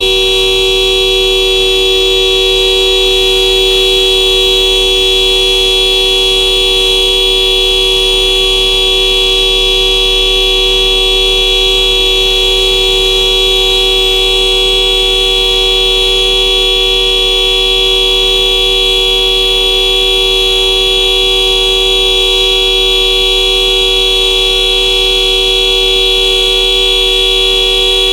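Honda car horn held down in one long, unbroken honk, two pitches sounding together and holding steady throughout.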